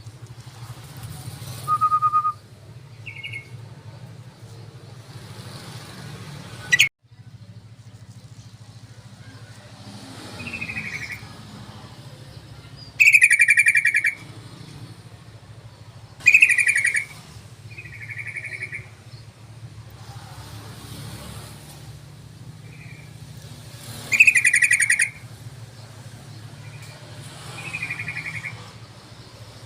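Yellow-vented bulbuls (trucukan) calling in short, bubbly bursts every few seconds, some loud and some fainter, over a steady low hum. There is one sharp click about seven seconds in.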